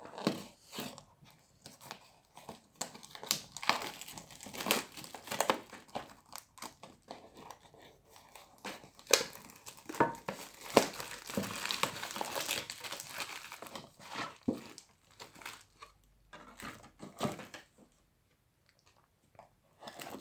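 Packaging being unwrapped: plastic wrap crinkling and tearing, with irregular crackles and rustles, as a sealed box of trading cards is opened. The handling goes quiet near the end.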